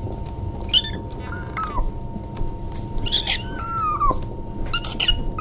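Kittens mewing: four or five short, high calls that fall in pitch, with a longer one near the middle.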